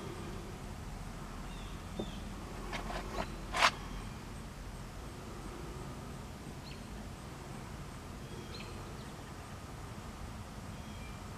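Quiet background with a few faint, short, high chirps scattered through it, and a short sharp click about three and a half seconds in, after a few softer clicks.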